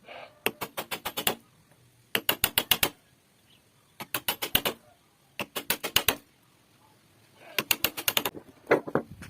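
Rapid sharp tapping in five short bursts of about ten taps a second, with pauses between them, then a few heavier single knocks near the end.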